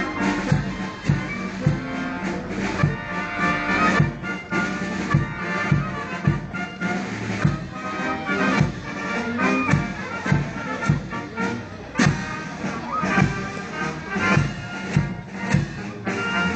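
Wind band playing a slow march, sustained brass and woodwind notes over a steady drum beat of one or two strokes a second.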